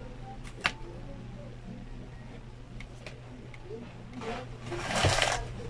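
Crispy fried chicken handled and bitten into: a sharp click about half a second in, then a loud crackling crunch of the breaded skin about four to five seconds in.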